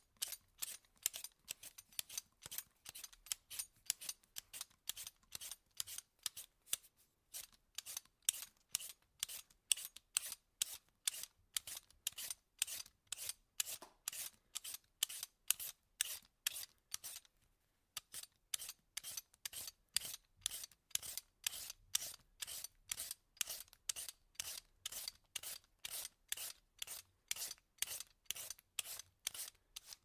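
Vegetable peeler scraping along food in quick repeated strokes, about three a second, each a short bright rasp, with brief pauses about a quarter of the way in and a little past halfway.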